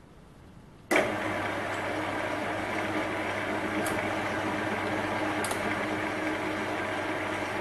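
Well-used Chinese bench lathe switched on about a second in, then running steadily with a machine hum and a steady whine, its chuck turning a home-cast aluminium workpiece for a boring-bar pass.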